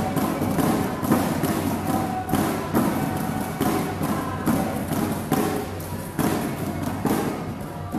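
Irregular knocks and thuds echoing in a busy sports hall, over faint background music.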